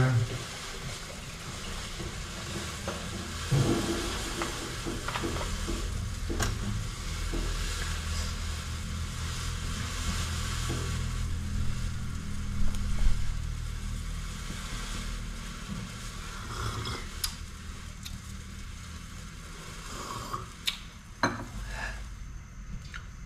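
Gas stove burner hissing steadily under an empty wok as it heats, with a low rumble and a few light knocks and clicks scattered through.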